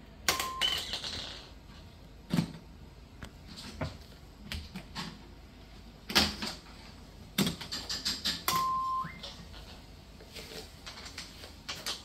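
A baby handling plastic toys: scattered clicks, taps and knocks. Two short electronic beeps sound, one right at the start and one about two-thirds of the way in, the second stepping up in pitch.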